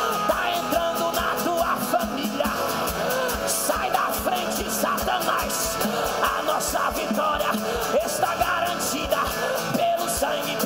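Live gospel worship music: a man sings forcefully into a microphone over a strummed acoustic guitar, with a steady beat underneath.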